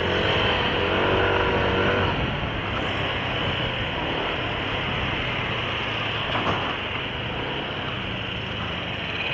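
Riding a Yamaha NMAX scooter: rushing wind and road noise over the steady hum of its single-cylinder engine. In the first two seconds a wavering pitched sound in several layers rides on top.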